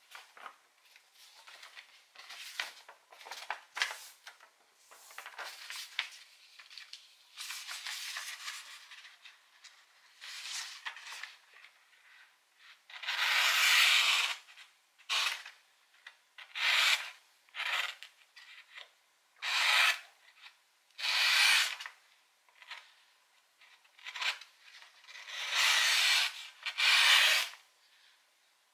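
Razor-sharp folding-knife blade slicing through sheets of paper: a series of separate rasping cuts. The cuts are short and quieter at first and grow louder and longer from about halfway through.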